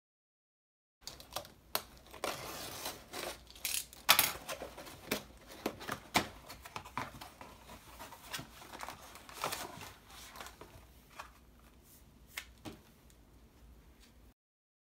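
Close-up handling of paper and packaging: a string of rustling, crinkling and tearing noises with sharp clicks and snaps. It starts about a second in and cuts off abruptly near the end.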